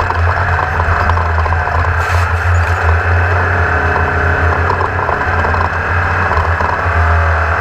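Race car engine running steadily: a continuous drone with a strong low hum and no change in pitch.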